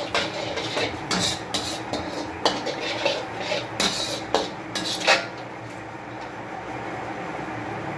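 A metal slotted spoon scraping and clinking against a black wok while stirring a thin sauce, in quick irregular strokes. The stirring stops about five seconds in, leaving a steady low hiss.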